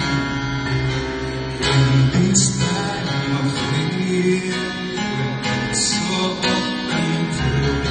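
A song performed on acoustic guitar, strummed, with a voice singing over it.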